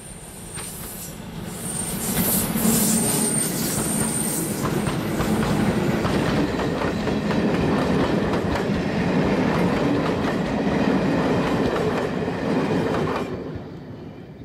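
Diesel-hauled train passing close by, its wheels clattering over the rail joints with a high wheel squeal in the first few seconds. The noise builds over the first two seconds and drops off sharply near the end.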